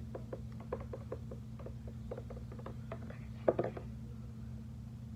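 Light, irregular clicks and taps of fingers handling a small homemade craft piece, with a louder knock about three and a half seconds in, over a steady low electrical hum.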